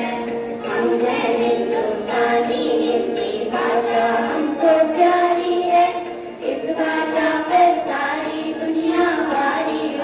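A group of children singing a Hindi song together in unison, with a short break between lines about six seconds in.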